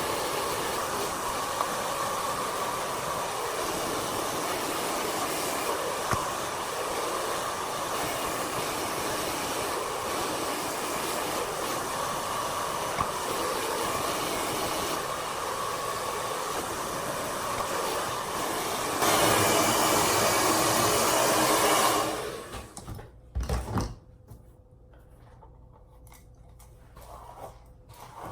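Handheld 2200 W ionic hair dryer with a narrow concentrator nozzle, blowing on its hot setting with a steady airy rush that gets louder for the last few seconds before it is switched off about 22 seconds in. A couple of short knocks follow after it stops.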